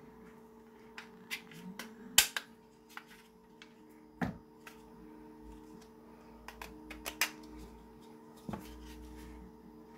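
Plastic pen holder parts clicking and knocking as they are handled, pried with tweezers and pulled apart: a scattering of short, sharp clicks, the loudest about two seconds in, with a few more near the middle and towards the end.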